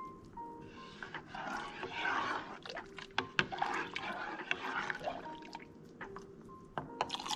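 Hot chocolate sloshing in a saucepan as a plastic ladle stirs and scoops it, in two spells, with light clicks of the ladle against the pot.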